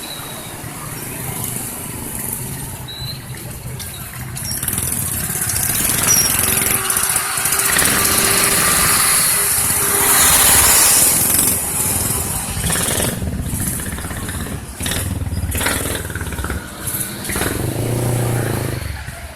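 Road vehicle passing, most likely a bus. The engine and road noise build from about four seconds in, are loudest around ten seconds, then ease off with some short dips.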